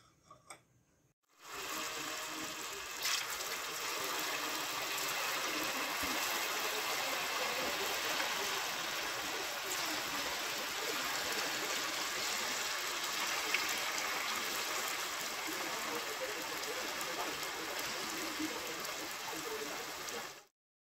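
Pieces of tofu deep-frying in hot oil: a steady sizzle of bubbling oil that starts suddenly about a second in and cuts off just before the end.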